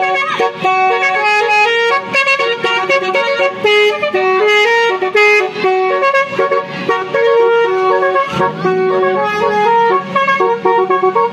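A basuri telolet horn, a multi-trumpet vehicle horn set, playing a tune. It runs as a quick string of bright horn notes stepping between a few pitches, some short and some held briefly, loud and almost without a break.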